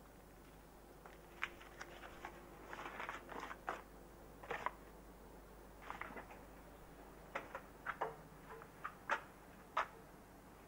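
Paper crinkling and rustling in irregular short crackles as it is handled and unfolded, with a few sharp knocks in the second half.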